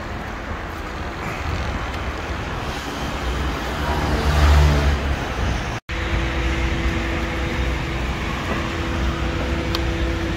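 Steady mechanical rumble that swells with a low engine-like drone about four to five seconds in. It cuts out for an instant just before the middle and comes back with a faint steady hum.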